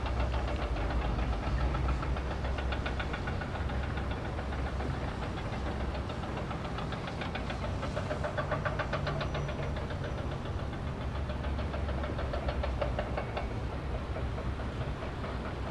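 A large engine running steadily, with a rapid, even knocking throughout.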